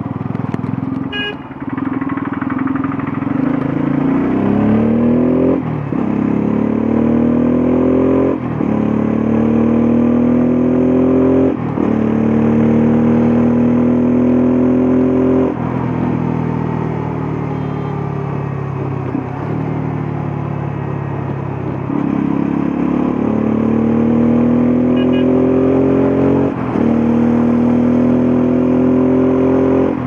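Bajaj Pulsar F250's single-cylinder engine accelerating through the gears. Its note rises and drops sharply with three upshifts in the first dozen seconds, then holds steady. Next it backs off and slows for several seconds, before climbing again with one more upshift near the end.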